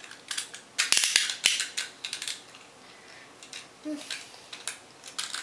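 Toothed plastic ripcord being threaded into a Beyblade launcher, its teeth clicking and rasping through in short strokes, busiest about a second in.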